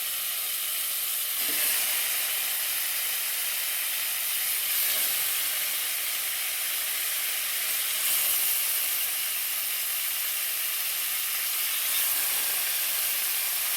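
Marinated chicken tikka pieces sizzling as they fry in oil and butter in a frying pan. The sizzle is a steady hiss that briefly gets louder every few seconds.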